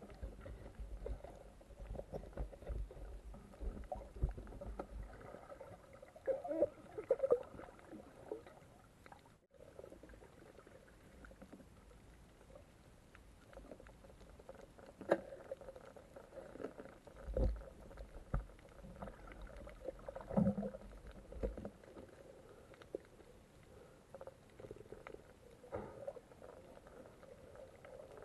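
Muffled underwater ambience: low rumbling water movement and irregular dull bumps with a few sharp clicks scattered through, and the sound cutting out for a moment about nine seconds in.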